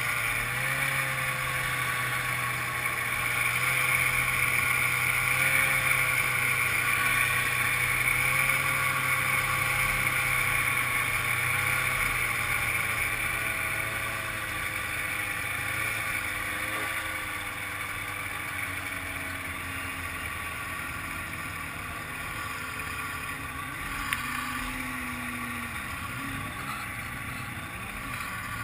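1995 Ski-Doo Grand Touring's two-stroke engine running at low, steady trail speed, heard from on board the sled. It eases off and gets a little quieter about halfway through.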